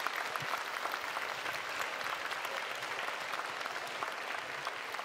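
Steady applause from many people clapping their hands.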